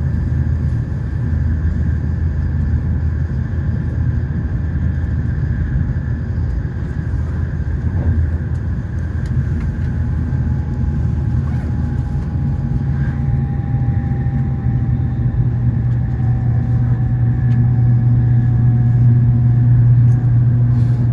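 Running noise of an N700S Shinkansen heard inside the passenger cabin: a steady low rumble, with a faint whine that slowly falls in pitch from about nine seconds in.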